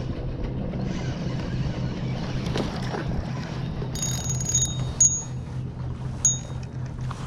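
Steady, evenly pulsing low mechanical hum. From about four seconds in, short high chiming notes of background music come and go over it.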